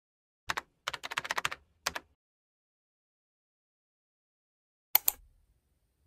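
Computer keyboard keystrokes: a couple of taps, a quick run of clicks, and two more taps, then after about three seconds of quiet two louder, sharper clicks.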